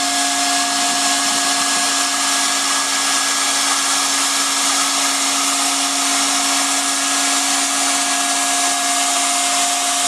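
BAK MicOn semi-automatic hot-air welding machine running while it welds: its hot-air blower gives a steady rush of air with a constant hum and whine from the motors.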